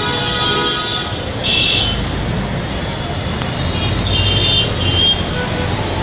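A vehicle horn sounds and stops about a second in. Steady traffic noise follows, with a few short high chirps.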